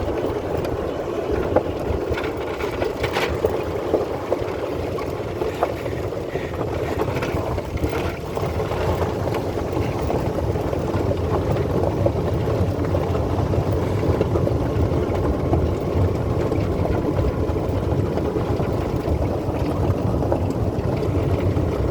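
Golf cart driving along: a steady drone of the cart and its tyres, with wind on the microphone and a few short knocks and rattles from the cart as it moves.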